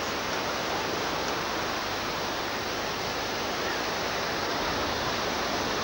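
Steady rushing noise of a gale-force wind blowing across the beach.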